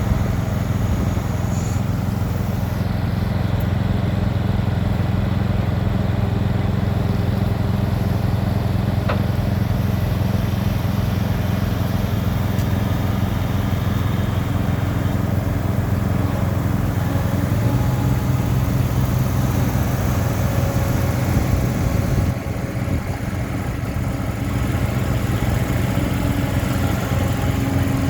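John Deere 260 skid steer's diesel engine running steadily. Its pitch steps up about two-thirds of the way through, then the sound drops for a moment and picks back up.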